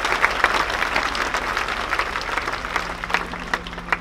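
Outdoor crowd applauding, the clapping thinning out over the last second or so to a few scattered claps.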